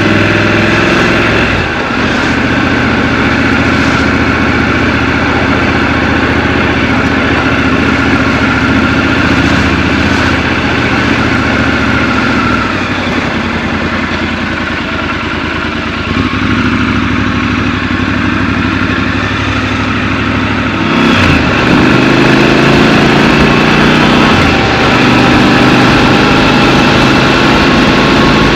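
Scrambler motorcycle engine running under the rider in city traffic. About two-thirds of the way through it gets louder and its pitch climbs slowly as the bike pulls away.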